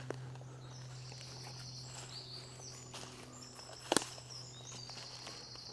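High, thin birdsong in woodland, in two phrases, over a steady low hum; a single sharp click just before four seconds in is the loudest sound.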